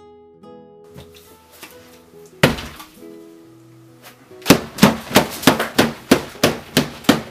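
Soft background music, then a single loud thump, then a rapid string of loud bangs and clatters, about four a second: hands slamming down on a cloth-covered table and knocking a plate about as food flies.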